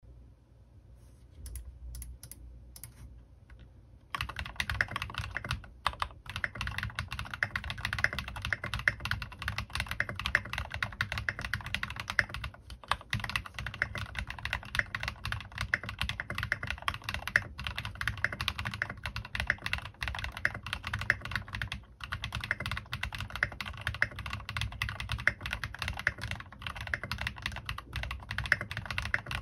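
Continuous fast typing on a Bahm Studio Droplet mechanical keyboard with lubed linear switches (Cherry MX Black housings with Tecsee Vintage stems) and Maxkey Ka keycaps: a dense run of keystrokes with a few short pauses. Only a few faint taps come first, and the steady typing starts about four seconds in.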